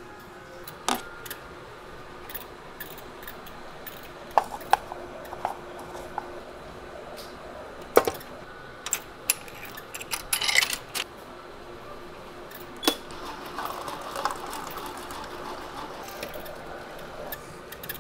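Cup coffee vending machine in use: a run of sharp clicks and coin clinks as money goes in and a button is pressed, then the machine running as it dispenses coffee into a paper cup.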